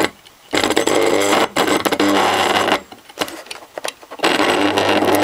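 Opened-up Commodore electric fuel pump motor buzzing and rattling in three bursts as power is applied to it, with a steady hum under each burst. It turns only a little: with no bearing fitted, the armature sticks to the magnets.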